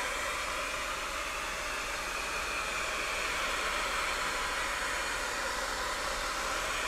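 Handheld hair dryer blowing steadily, held over a phone to warm the adhesive that bonds a newly fitted digitizer.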